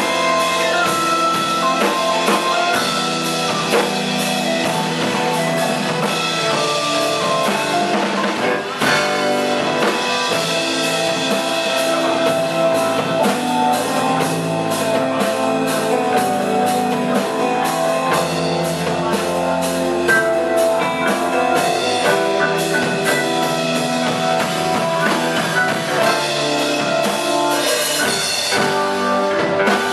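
A live band playing an instrumental passage: electric keyboard, electric bass, electric guitar and drum kit together, with steady drumming throughout.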